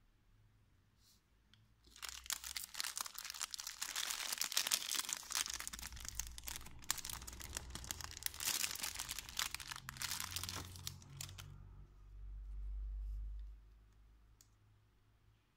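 Thin clear plastic sleeve crinkling and crackling while hands open it and slide a leather-strapped quartz watch out, for about nine seconds. Then a brief low rumble, and quiet handling.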